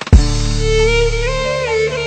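Instrumental music: a violin melody with slides between held notes over a sustained bass, opening with a loud hit just after the start.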